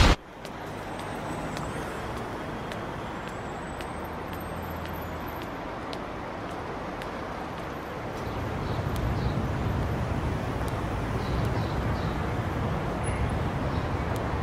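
Steady urban street ambience: a low hum of distant traffic that grows louder about eight seconds in, with a few faint high chirps later on.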